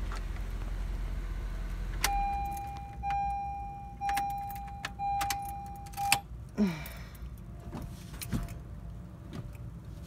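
A Honda Civic's engine idling with a low hum, shut off with a click about two seconds in, after which the car's warning chime sounds four steady beeps about a second apart. Keys jangle and click, and a short falling whine follows the chime.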